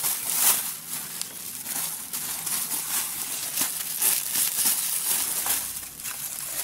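Plastic bubble wrap crinkling and rustling as it is handled and wrapped, with irregular crackles throughout.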